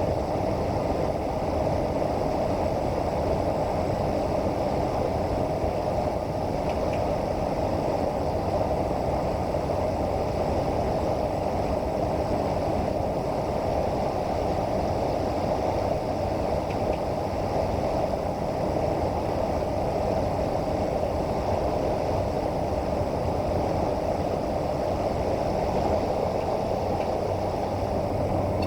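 Steady drone of a Cessna 208 Caravan's turboprop engine and propeller, heard inside the cockpit on final approach, with no change in power.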